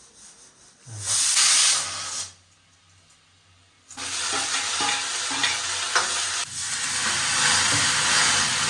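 Food frying in a hot pan: a short burst of sizzling, then about four seconds in a steady sizzle with light clicks and scrapes of stirring.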